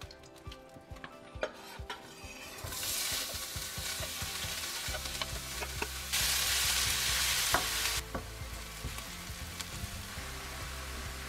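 Chopped onions frying and sizzling in hot oil in a frying pan, stirred about. The sizzle starts about three seconds in, is loudest for a couple of seconds in the middle, then settles to a steadier, quieter sizzle.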